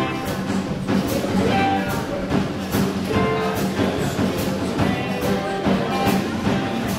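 Live rock band playing: a Gretsch drum kit keeping a steady beat with cymbal hits, with electric bass and electric guitar.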